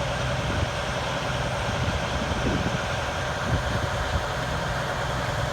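Fire ladder truck's engine idling steadily.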